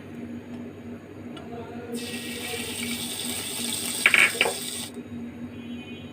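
Pancake frying in a buttered pan on the stove: a dense sizzling hiss that starts and stops abruptly a couple of seconds in, with a brief clatter of a utensil near its end and a low steady hum underneath.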